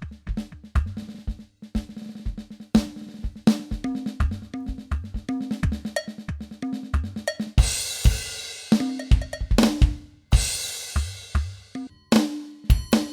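Yamaha DTX700K electronic drum kit played in a fast beat of kick, snare and tom hits, its module voices ringing with a low pitched tone. Two long cymbal crashes ring out, one about halfway through and another a little later.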